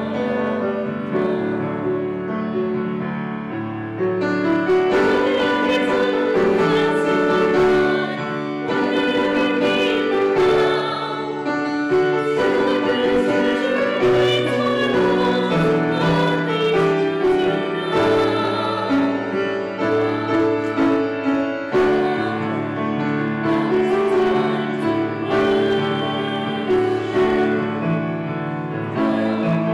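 A small choir of men and women singing with grand piano accompaniment, in continuous phrases.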